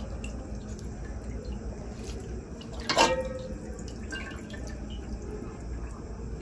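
Water dripping and splashing in a metal pot as whole fish are rinsed in it by hand, with one sharper, louder sound about three seconds in.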